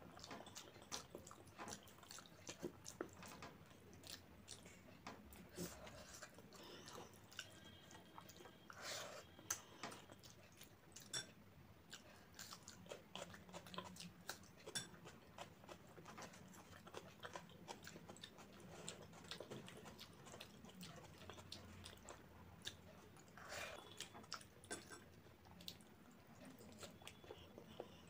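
Faint close-miked chewing of hand-mixed rice with dal and egg curry, with many small wet mouth clicks scattered throughout, and fingers mixing rice on the plate.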